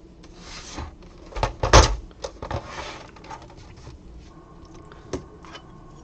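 Handling of a PlayStation 4 console's plastic casing on a work surface: a few knocks, loudest about two seconds in, and short sliding rubs.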